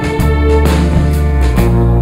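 Background music with guitar, a strong bass line and a steady drum beat.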